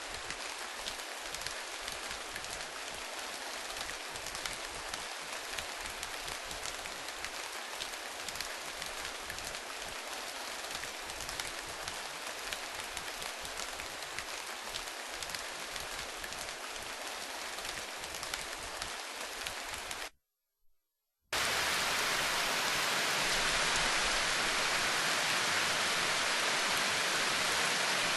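Rain sound effect: a steady hiss full of fine drop ticks. It cuts off about twenty seconds in, and after about a second of silence a louder, smoother rain begins.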